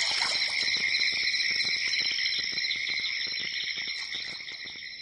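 A steady, high-pitched insect chorus, like crickets chirring, slowly fading away.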